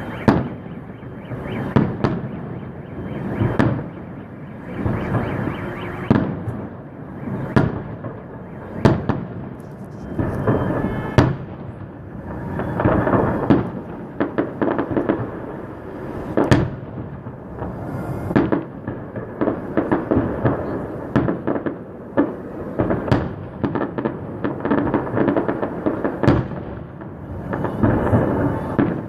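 Festive fireworks salute: a steady barrage of shell bursts, with sharp bangs a few times a second over a continuous rumble of overlapping explosions.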